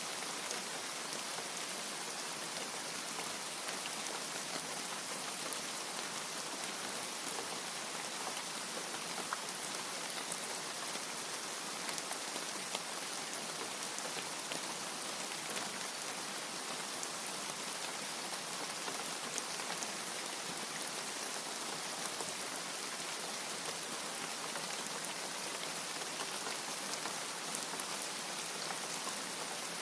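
Steady rain: an even hiss of falling rain with scattered sharp drop ticks, unchanging throughout.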